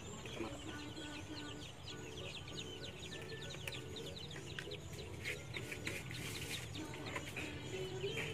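Chickens clucking, with a steady stream of quick, high, falling peeps.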